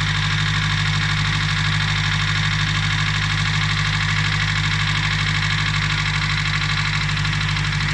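Nissan SR20DE four-cylinder engine idling with a fast, even ticking knock running through the steady engine sound. The knock appeared after an oil change, and the owner puts it down to the hydraulic lifters and oil that is too thick.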